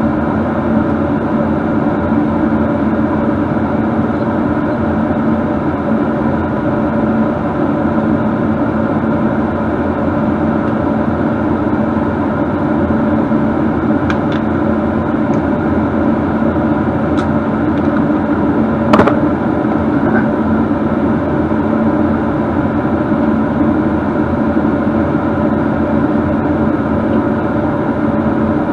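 A motor running steadily with a loud, even rushing hum. A few light clicks come about halfway through, and a sharper knock about two-thirds of the way in.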